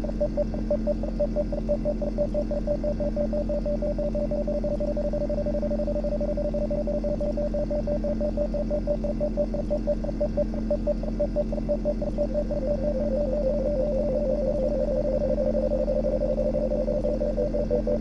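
Synthesized sine tones from SuperCollider: a slightly detuned pair near 590 Hz (440 and 443 Hz raised five semitones) pulsing on and off about six times a second, over a steady low drone sample played down five semitones. About thirteen seconds in, a second pulsing sine pair a little lower (near 494 Hz, two semitones up from 440) fades in alongside it.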